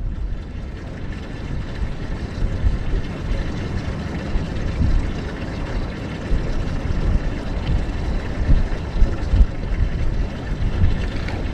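Steady low rumble of wind buffeting the microphone on an open boat, with water washing against the hull; no motor tone is heard.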